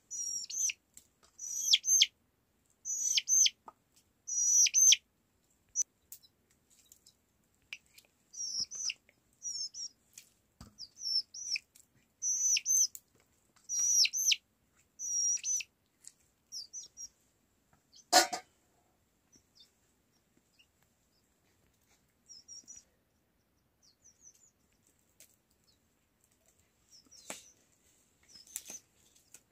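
Short high-pitched bird chirps repeated in quick clusters, thinning out after about 17 seconds, with a single sharp knock about 18 seconds in.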